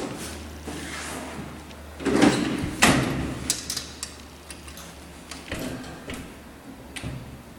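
Doors of a 1960s Schindler traction elevator sliding, ending in a sharp clunk about three seconds in, with a few lighter clicks after, over a low steady hum.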